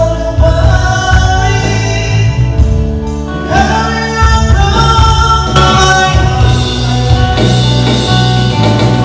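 Live band playing a song, with a singer's voice over electric guitars, including an Ibanez AT100, plus bass, keyboard and drums.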